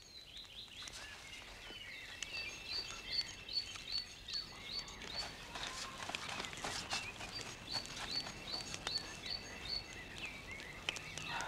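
Birds singing and chirping: a short high chirp repeated about three times a second in two runs, with other chirps and brief glides around it. A few soft clicks sound now and then.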